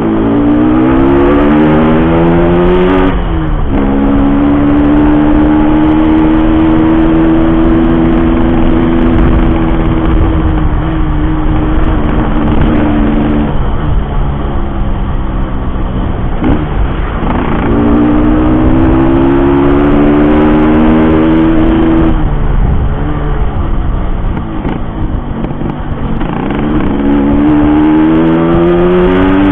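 Yamaha RX-King two-stroke single-cylinder motorcycle engine under way, revving up through the gears with sharp drops in pitch at the shifts, about three seconds in, around seventeen seconds and near the end, and holding steady revs while cruising between them.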